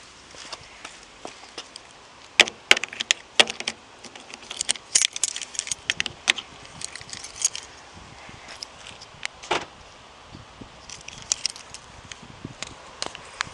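Car keys jangling and a flip key clicking in a car door lock: a run of short, sharp metallic clicks and jingles, thickest from a couple of seconds in until past the middle, with a few more near the end.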